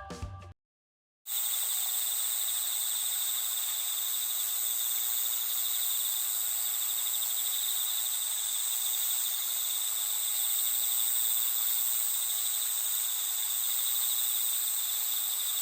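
Crickets chirping in a steady, high-pitched chorus that starts about a second in, after the music cuts off and a brief silence.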